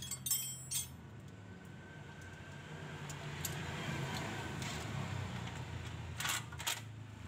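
Sharp metallic clinks of tools and steel parts being handled during work under a car: a couple just after the start and two more about six seconds in, over a low steady hum.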